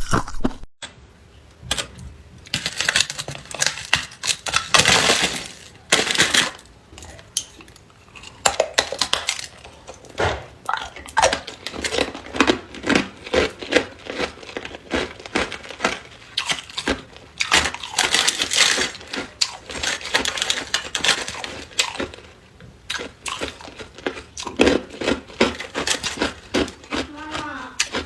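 Hard ice being bitten and chewed: repeated crisp, crackling crunches in clusters, with brief pauses between bites.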